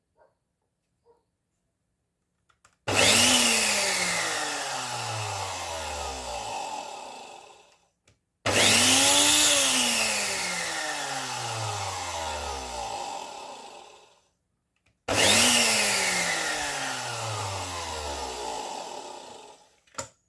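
Oster 12-speed blender's motor run three times for about five seconds each. Each run starts suddenly with a loud whir, then the pitch falls steadily as the motor winds down. The blender is running again after its blown fuse was replaced.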